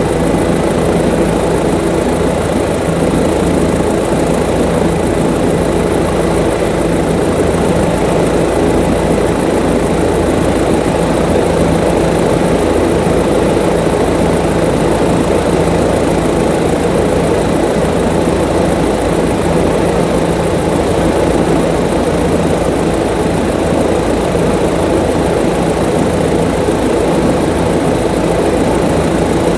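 Aircraft engine running steadily, heard from on board: a constant loud hum with a few steady low tones that do not change.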